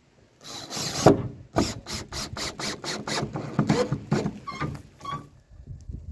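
Cordless drill spinning a countersink drill bit into a wooden plank to bore a pilot hole for a screw. It runs steadily for about a second, then chatters in quick short bursts, about four or five a second, with a squealing cut.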